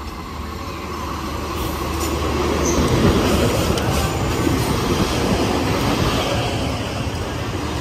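Passenger train pulling into the station, its wheels running on the rails. It grows louder over the first three seconds, then holds steady.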